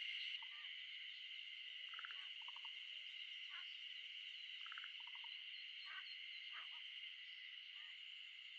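A steady, high-pitched chorus of calling animals, with short pulsed calls standing out about once a second over it.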